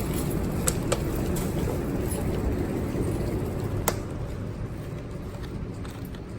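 Steady low road rumble of a moving car, with a few sharp clicks and a slight drop in level about four seconds in.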